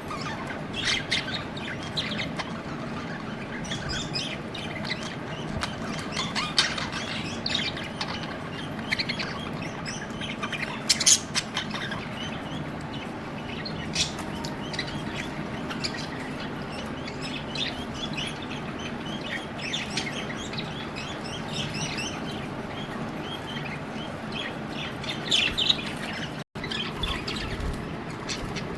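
Budgerigars chirping: many short, high chirps at irregular intervals over a steady low hum, with the sound cutting out for an instant near the end.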